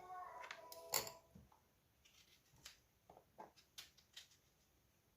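Faint kitchen handling sounds: a sharper click about a second in, then scattered light clicks and taps of lemons and a glass jar being handled.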